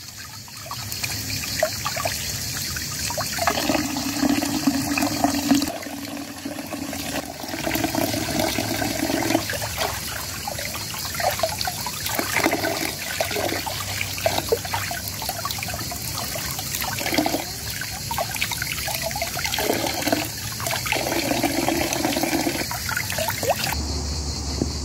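Tap water running and splashing into a plastic basin of water while vegetables are rubbed and rinsed by hand under the stream. The splashing changes in pitch as the hands move in and out of the flow, and the highest part of the sound drops away shortly before the end.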